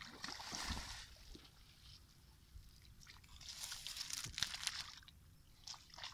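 Wet cast net dragged through shallow water and over soft mud, sloshing and squelching, with bare feet squelching in the mud. The sound comes in two stretches, the first near the start and a louder one from about three and a half seconds in.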